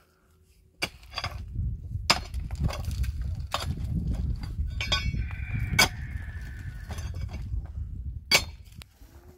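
A long-handled digging tool striking stony ground, about five sharp strikes a second or two apart, over a low rumble.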